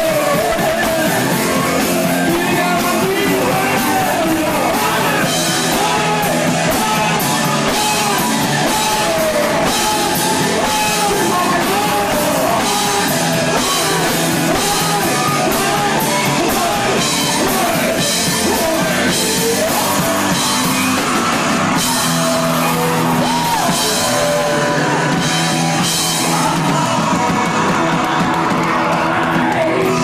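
Rock band playing live: electric guitar, electric bass and drum kit with a lead singer, steady and loud throughout.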